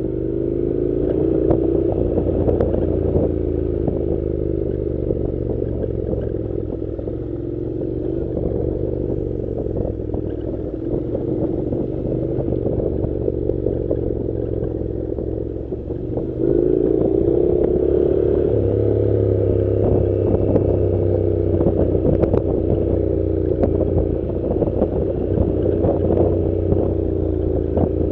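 Honda NC700's 670 cc parallel-twin engine running as the motorcycle rides a dirt road, with gravel clattering under the tyres. A little past halfway the engine note rises and gets louder as the bike picks up speed.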